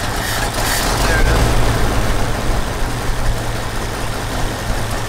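1972 Ford C600's FE big-block V8 running at a steady idle on its freshly rebuilt Motorcraft 2100 carburetor while the carburetor is being adjusted by hand. It runs a little louder for about a second shortly after the start, then settles.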